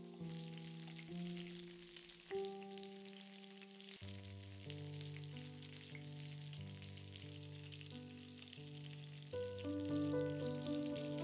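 Slow music with held notes and chords that change every second or so, over a steady crackling hiss.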